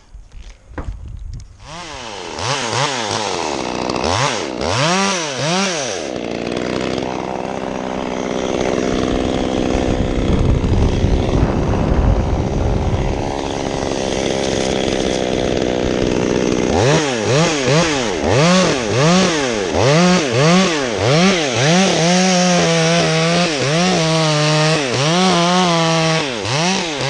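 Two-stroke chainsaw revved up and down a few times, then held at high revs under load, cutting through wood for about ten seconds, then blipped up and down repeatedly near the end.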